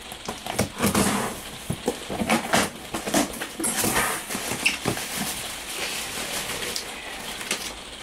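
Packaging being torn and rustled open by hand: an irregular run of crackles, rips and light knocks.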